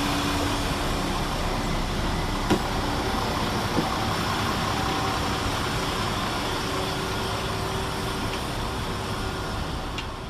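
Two coupled Class 172 Turbostar diesel multiple units running through the station: a steady engine and wheel noise with a few faint tones and a couple of small clicks, easing off near the end.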